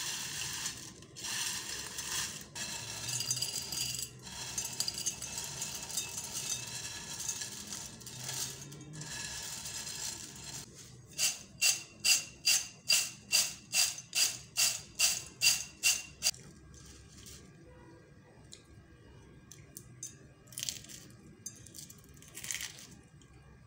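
Crisp fried potato slims (thin potato straws) rustling and crackling as hands turn them over. Midway they are shaken in a bowl, a rhythmic rattle of about a dozen quick shakes over five seconds, followed by a few light crunches as a handful is picked up.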